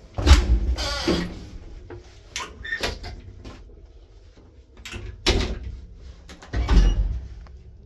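The old IFMA traction lift's manual swing landing door and its inner car doors being shut by hand. There are three loud bangs, about a third of a second in, near five seconds and near seven seconds, with lighter knocks, clatter and a scrape between them.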